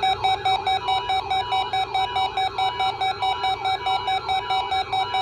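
Weather radio alert alarms sounding together, set off by the NOAA Weather Radio Required Weekly Test: rapid pulsed beeping at about four beeps a second, layered over a steady tone and a repeating warble.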